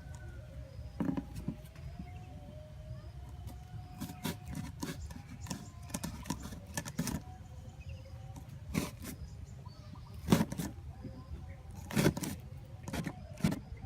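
Irregular sharp clicks and knocks, the loudest about ten and twelve seconds in, over a steady low rumble.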